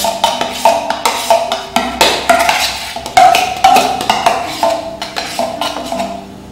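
Background instrumental music: a quick melody of short, struck, wood-block-like notes, about three a second, over a low bass line, growing quieter near the end.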